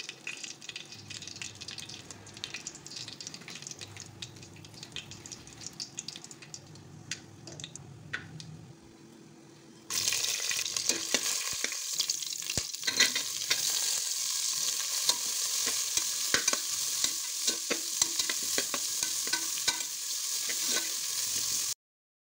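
Rice boiling in water, a soft crackly bubbling with a faint steady hum underneath. About ten seconds in, it cuts to whole spices, green chillies and sliced onions sizzling loudly in hot oil, a dense crackle full of sharp pops that stops abruptly just before the end.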